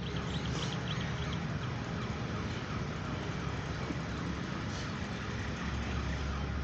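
Steady outdoor background noise: a low hum under an even hiss, with no distinct events.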